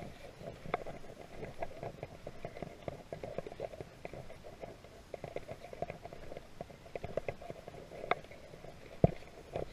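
A person walking: irregular crunching footsteps and rustling, with one sharp knock about nine seconds in.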